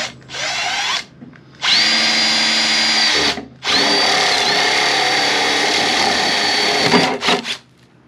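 Cordless drill boring a starter hole through the white vent trim piece, the hole from which a jigsaw cut will be started. It runs briefly, then in two long steady runs with a high motor whine, and gives a few short blips near the end.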